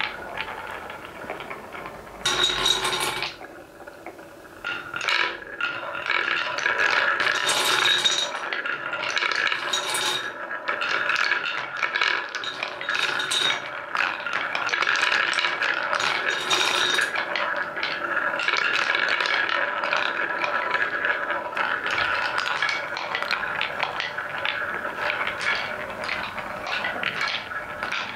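Wooden balls rolling steadily along wooden marble-run track, with sharp clacks now and then as they knock into each other and the wooden pieces. The rolling is interrupted by a brief quieter spell about four seconds in.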